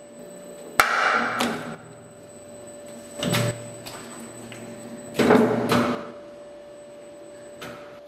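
Twin-shaft shredder running with a steady hum while its cutters knock a steel hydraulic bottle jack about without biting into it. There are several loud metallic clanks: two about a second in, one around three seconds, the loudest cluster about five seconds in, and a light one near the end.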